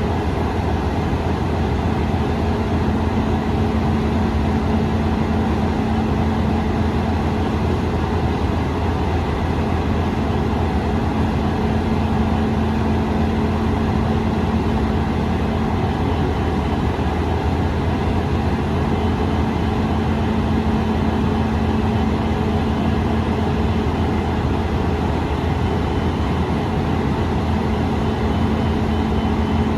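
Steady low drone of an Indian Railways WDG4 diesel-electric locomotive's 16-cylinder two-stroke engine running, heard together with a WAG 9HC electric locomotive, with a steady hum over it that drops out twice for a few seconds.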